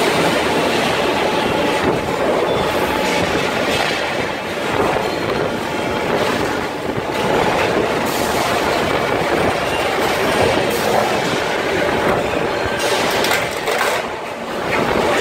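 Tandem sheet-metal stamping press line running: a steady, dense mechanical clatter and rumble, dipping briefly a few times.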